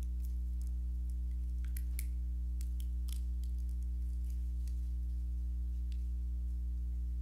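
Steady electrical mains hum, a low buzz with a ladder of overtones, from the sound system. Faint scattered clicks and crackles sit over it, most of them in the first three seconds.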